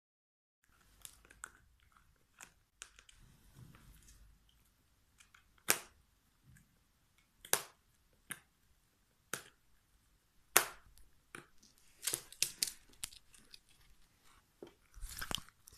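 A dog gnawing on a hard chew, giving irregular sharp cracks and clicks, several seconds apart at first and closer together later, with a burst of rustling near the end.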